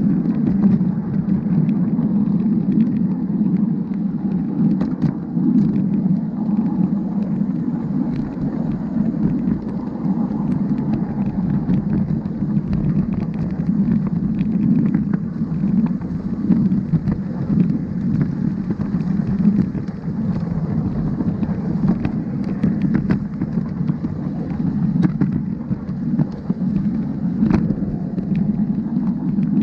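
Battery-electric 7¼-inch gauge locomotive running along its track: a steady low drone from the motor drive and the steel wheels rolling on the rails, with scattered sharp clicks over it.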